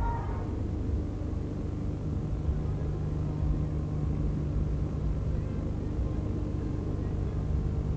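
Steady low hum over a dull, even background rumble from the gymnastics hall, with no distinct events.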